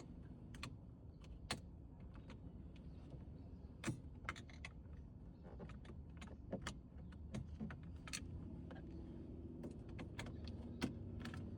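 Scattered light clicks and small rattles as the ignition switch is worked out of the steering column, over a low steady hum.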